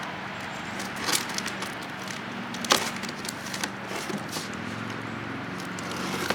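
Scattered knocks and crackles of the e-bike's cardboard shipping box and packaging being handled during unboxing, the sharpest knock a little under halfway in, over a steady low hum.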